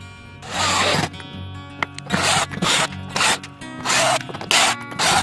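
Drill driver fitted with a cut-down PH2 screwdriver tip, driving a wood screw into a wooden block without a pilot hole, deliberately pushed to make the tip cam out. It runs in about seven short bursts of a few tenths of a second each, the first about half a second in and the rest close together in the second half. Background music plays underneath.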